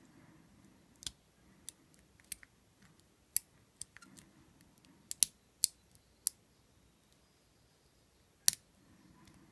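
Lock pick and tension wrench working the wafers of an old Yale wafer padlock during single-wafer picking: sharp, irregular small metal clicks, several close together in the middle and one loud click near the end.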